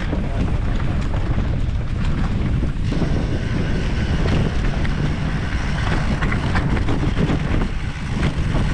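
Mountain bike riding fast down a dirt forest trail, heard from a camera mounted on the bike: a steady low rumble of wind on the microphone and knobby tyres on dirt, with small clicks and rattles from the bike.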